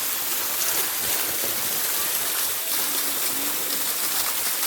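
Steady hiss of flowing water.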